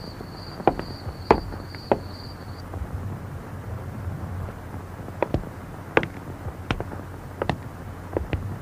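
Footsteps walking slowly, sharp clicking steps about two-thirds of a second apart, three of them, a pause, then more from about five seconds in. A thin, high, steady cricket chirring stops a couple of seconds in.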